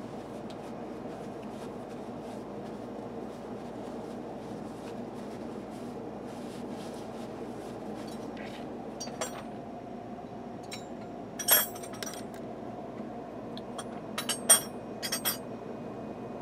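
Sharp metallic clinks and taps from metal parts or tools being handled, a handful in the second half with the loudest about halfway through, over a steady low hum.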